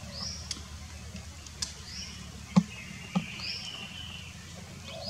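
A bird repeating a short high chirp about every second and a half over a steady low hum, with a few sharp clicks, the loudest a little past halfway.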